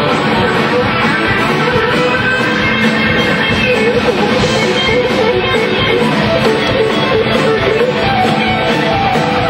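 Live country-rock band playing: electric and acoustic guitars over a drum kit.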